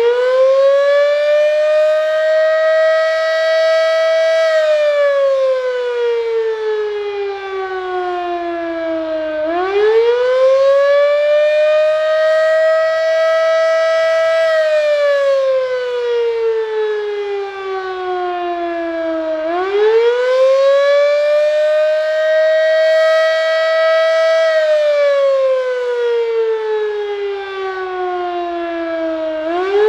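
Darley 3V8 fire siren on test, winding up and down in a repeating wail. The pitch rises quickly, holds briefly at the top, then falls slowly, about every ten seconds.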